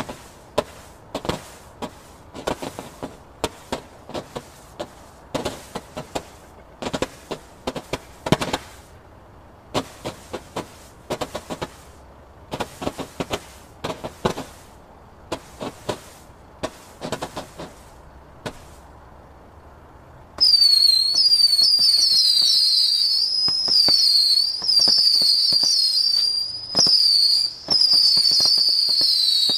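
Evolution Northern Lights 56-shot firework candle, Silver Mine version: a rapid, irregular string of pops and bangs as the mines fire. After a short pause, about two-thirds of the way in, the Whistle version starts: loud continuous shrill whistles, several overlapping, each wavering up and down in pitch.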